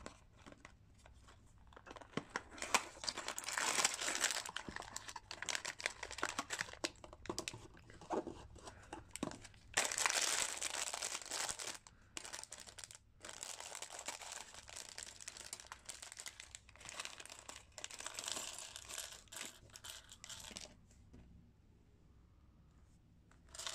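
Small clear plastic parts bags from a toy brick minifigure set crinkling as they are handled and torn open, in runs of crackling with a brief pause partway through; it goes quieter near the end.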